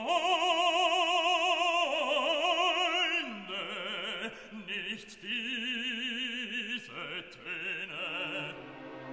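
Classical background music: an operatic voice holding long notes with wide vibrato, stepping down in pitch a couple of times.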